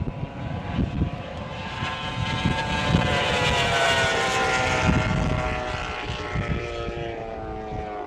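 Unlimited-class racing outboard motor on a hydroplane at full throttle, passing by: a high, steady engine whine that swells to its loudest about halfway through, then drops slightly in pitch as it fades.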